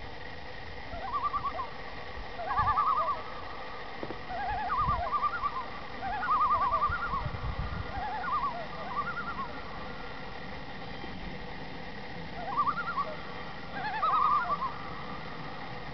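Common loons giving their tremolo call: several bursts of rapid quavering notes at two overlapping pitches, with a pause of a few seconds in the middle before two more bursts near the end.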